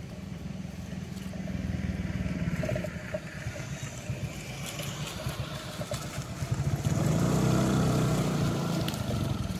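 A motor engine running, swelling louder twice, most strongly in the second half.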